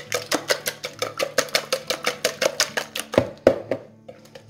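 Eggs being beaten in a bowl: a utensil clicks fast and evenly against the bowl, about six strokes a second. A little after three seconds in come two louder knocks, and then the clicking stops.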